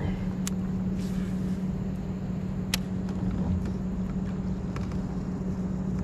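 A steady low motor hum runs under a faint rumble, with two sharp clicks, one about half a second in and a louder one near the three-second mark.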